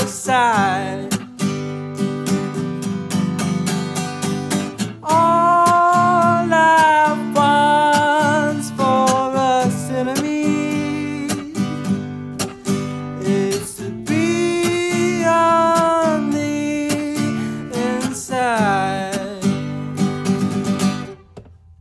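A man singing over a strummed acoustic guitar, played live. The music breaks off near the end.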